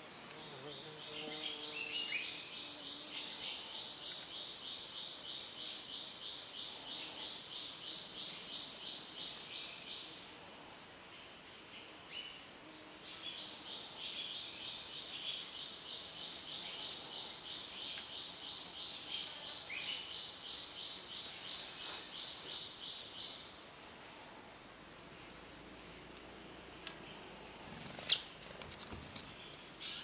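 Insects in the forest: one high, steady buzzing drone runs throughout, while a second, lower, rapidly pulsing trill sounds in two long stretches, from about a second to ten seconds in and again from about thirteen to twenty-three seconds in. A few brief chirps come over it, and there is a single click near the end.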